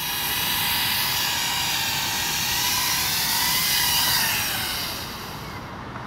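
Skydio R1 quadcopter's propellers whining steadily as it comes down to land, with the pitch shifting a little about three to four seconds in. The sound drops in level near the end as the drone settles on the pavement and the rotors wind down.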